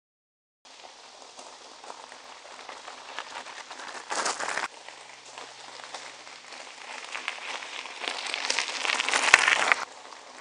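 Unicycle tyre crunching and crackling over loose gravel, growing louder as the rider comes closer. There is a brief louder burst about four seconds in, and the loudest crunching comes just before the sound drops off suddenly near the end.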